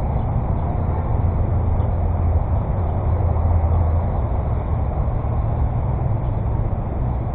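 Steady low rumbling noise with no clear breaks or impacts.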